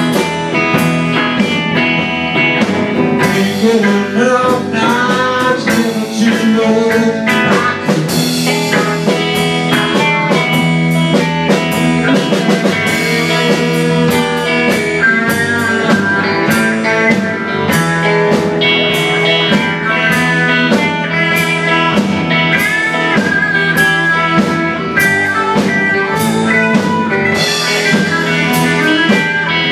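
Live blues band playing an instrumental stretch of a song: electric guitars, electric bass and drum kit, with a lead guitar line of gliding notes.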